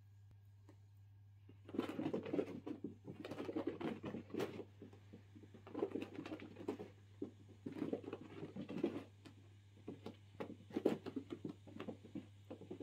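Ragdoll kitten's paws scampering and scratching on carpet in quick flurries as it pounces and spins after a light spot, starting about a second and a half in.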